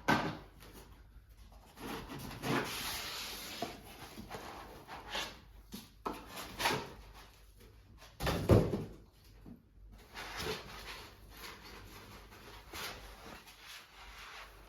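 Packaging being handled while an electric scooter is unboxed: irregular rustles and knocks of cardboard, plastic wrapping and parts being moved, with the loudest knock a little past halfway.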